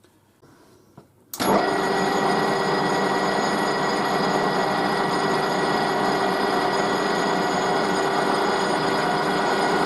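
A metal lathe starts about a second and a half in and then runs steadily. Its motor and gearing give a loud, even whine made of several steady tones.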